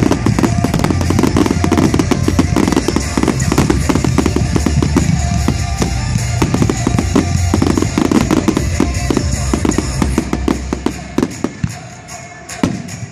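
A dense finale barrage of aerial firework shells bursting, a rapid stream of bangs and crackles, over loud pyromusical music with a heavy beat. The barrage thins out near the end, leaving a few separate bangs.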